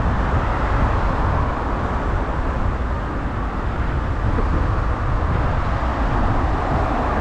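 Steady roar of road traffic on a busy multi-lane highway, cars and trucks passing continuously without any single vehicle standing out.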